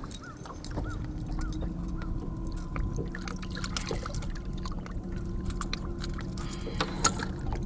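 Steady low hum of a small electric motor on a bass boat, with faint water trickling and light clicks of handling.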